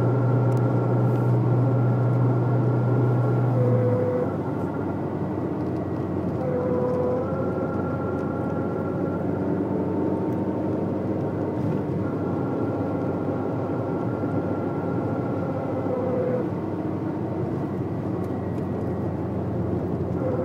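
Citroen Saxo driving at highway speed, heard from the cabin: steady road and engine noise. A strong low hum sits over it for about the first four seconds, then stops suddenly. This is the front-end noise under throttle that the owner traced to the left drive shaft.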